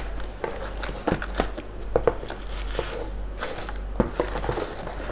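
Tissue paper and a cardboard shoe box rustling and crinkling as leather flip-flops are handled and lifted out, with scattered light knocks and clicks.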